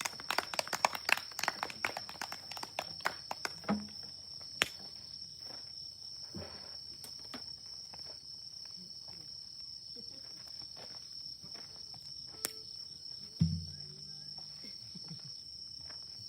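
Wood fire crackling and popping, a dense run of sharp pops in the first four seconds thinning to occasional single pops, over a steady high tone. A few soft low thumps come about four, six and thirteen seconds in.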